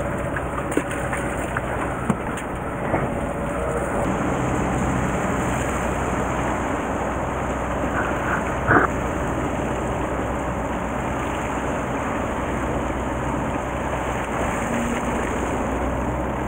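Steady low hum of a fishing boat's engine with wind and sea-water noise over it, and a few light knocks, the clearest about nine seconds in.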